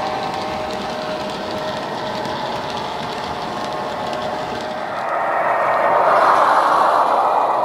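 Model railway wagons rolling along the track with a steady running rumble. From about five seconds in, the Irish Rail 141 diesel's DCC sound-decoder engine sound grows louder from the loco's speaker as the model approaches.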